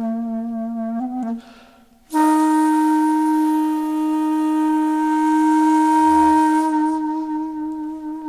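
Background music: a wind instrument plays a short low note, pauses briefly, then holds one long steady note for about six seconds.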